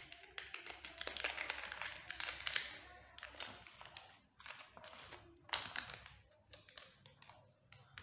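Plastic packaging rustling and crinkling, with light taps and clicks as small electronic parts and a clear plastic organiser box are handled. The rustling is densest in the first three seconds, then gives way to scattered clicks.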